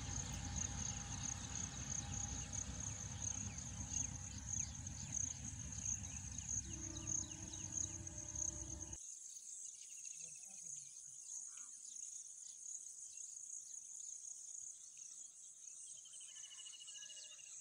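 Insects, crickets among them, trilling steadily at a high pitch. Under them runs the low rumble of a distant passing passenger train, which cuts off abruptly about nine seconds in.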